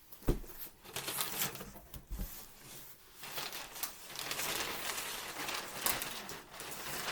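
Cardboard box being opened and its packaging rustling and crinkling in irregular bursts, with a sharp knock about a third of a second in.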